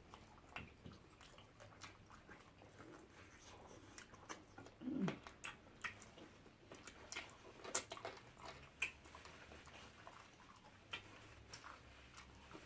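Faint, close-up eating sounds of fufu and peanut pepper soup: scattered wet mouth clicks and smacks at an irregular pace. About five seconds in there is a short low vocal sound falling in pitch.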